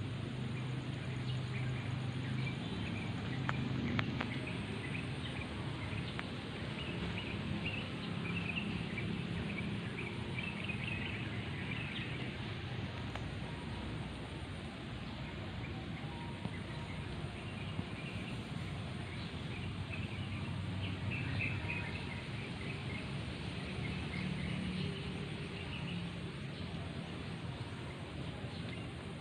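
Birds chirping faintly in short scattered spells, several times, over a steady low hum of background noise.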